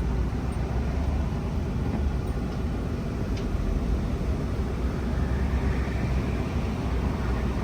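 Pickup truck engine running with a steady low rumble as it is driven up the ramps onto a car-hauler trailer.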